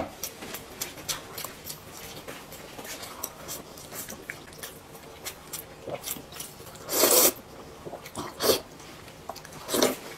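Close-up eating sounds: a steady run of small wet clicks and smacks of chewing. Three louder slurps of food drawn into the mouth come about seven, eight and a half and ten seconds in.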